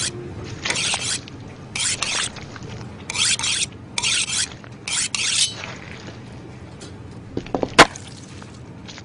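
Kitchen knife sharpened on a honing steel: about five quick scraping strokes of blade on steel, then a sharp, loud clack near the end.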